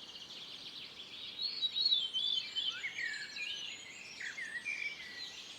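Several small songbirds singing at once, an overlapping chorus of high chirps and warbled phrases, loudest about two seconds in.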